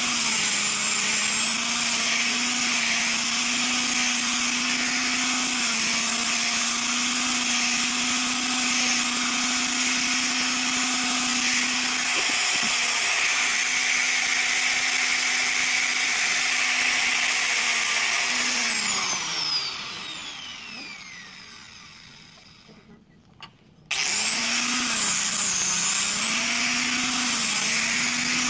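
Handheld angle grinder with a sanding disc running with a steady whine. About 19 seconds in it is switched off and winds down, its pitch falling over several seconds. About 24 seconds in it is switched back on, its pitch dipping and wavering repeatedly.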